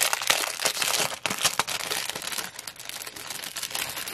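Clear plastic packaging bag crinkling as it is handled to get at the small bags of diamond-painting drills, with dense crackling loudest in the first second and a half, then softer.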